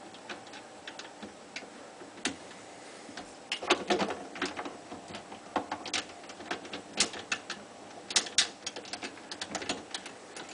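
Irregular sharp clicks and knocks of plastic drain pipe fittings being handled and fitted onto a garbage disposal, in clusters.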